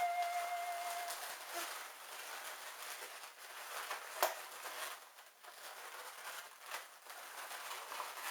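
Faint crinkling and crackling of latex modelling balloons being handled and twisted, with scattered small clicks, one sharper about four seconds in.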